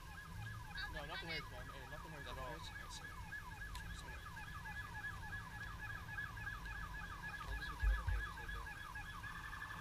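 Emergency vehicle siren sounding a rapid yelp, its pitch sweeping up and down several times a second, switching to a quicker pulsing tone near the end. A low thump about eight seconds in.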